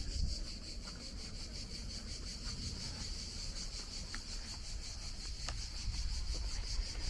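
Insects chirring steadily: a high, rapidly pulsing trill that carries on without a break.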